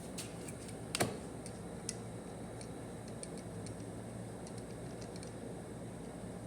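Scattered light clicks and taps of parts being handled while fitting a TH400 transmission's valve body, with one sharper click about a second in, over a faint steady low hum.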